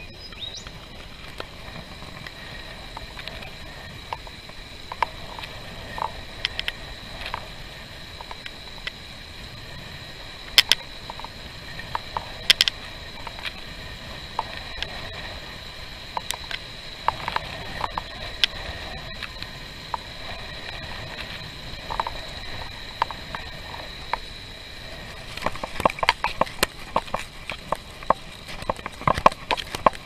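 Bicycle coasting downhill at speed: steady wind and road rumble under a thin, steady high whine, with scattered sharp clicks and rattles that come thick and fast near the end.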